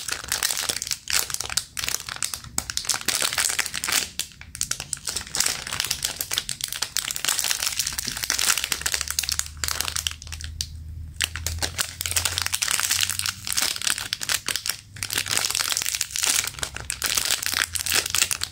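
Clear plastic bag crinkling steadily as a squishy toy is squeezed and turned inside it, with a short lull about halfway through.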